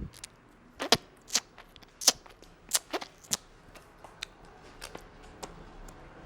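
A masseur's hands making a quick, irregular run of sharp slaps and snaps during an Indian head massage. The loudest strikes come in the first three and a half seconds, followed by a few fainter ones.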